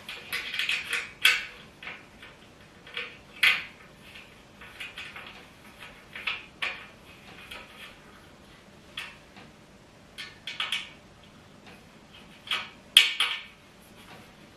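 Irregular clinks, taps and rattles of metal parts and tools being handled while a flat-pack dining table is assembled, with the sharpest knocks about a second in, about three and a half seconds in, and near the end.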